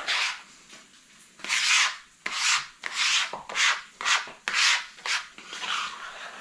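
Plastic bench scraper scraping across a wooden cutting board to gather minced garlic, in about nine short, sharp strokes.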